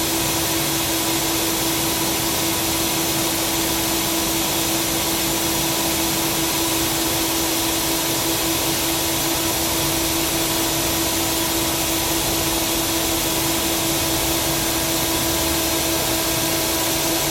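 Tsugami SS32 sliding-headstock CNC lathe running: a steady hiss with a constant hum-like tone underneath and no breaks.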